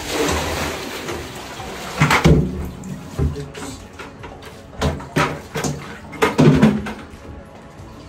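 Water splashing and sloshing, then a run of irregular knocks and clunks, the loudest about two seconds in and again between five and seven seconds in.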